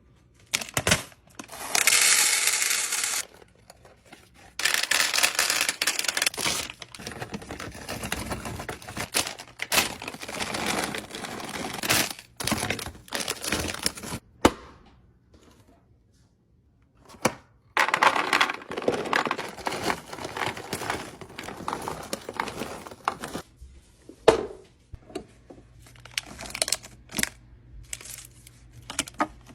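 Plastic snack packaging crinkling and rustling as items are handled, with scattered sharp clicks and taps of things being set down, in several long stretches with a short pause about halfway through.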